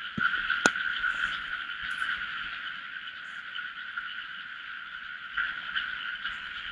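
Dense chorus of calling frogs, an unbroken high-pitched trill. A single sharp click comes in the first second.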